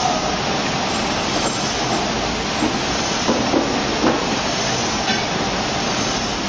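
Paper rope twisting machine running steadily, a continuous mechanical rushing hum, with a few light knocks about three to four seconds in.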